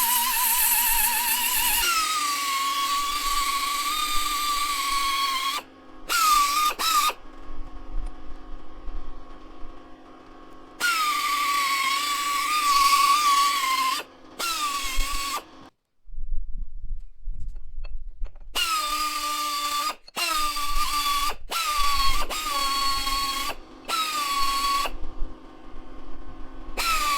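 A small power tool's motor whining at a high, steady pitch in repeated runs, switched off and on several times. Each run starts a little higher and settles lower, as the tool takes up the load.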